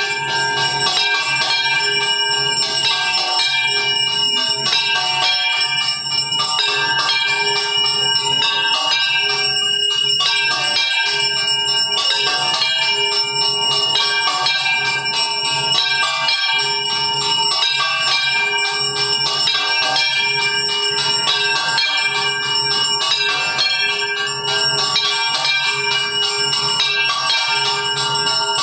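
Temple bells rung continuously and rapidly for the evening aarti: a dense, unbroken clanging over steady ringing tones.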